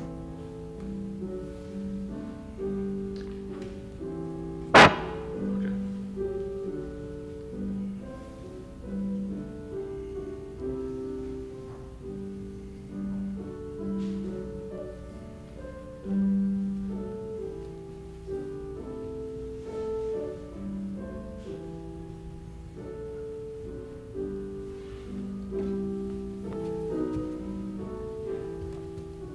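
Slow keyboard music of held chords and a quiet melody line. A single sharp knock about five seconds in stands out as the loudest sound.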